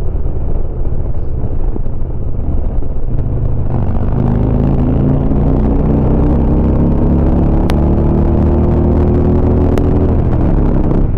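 Harley-Davidson motorcycle's V-twin engine running under way. From about four seconds in its pitch climbs steadily as the bike accelerates.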